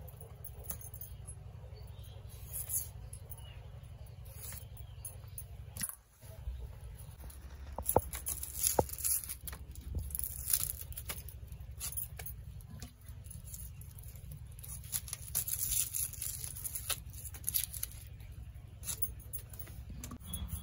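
Potato and onions being peeled and sliced by hand against a boti, a fixed upright curved blade: irregular scraping and sharp slicing clicks, busiest in the second half, over a low steady rumble.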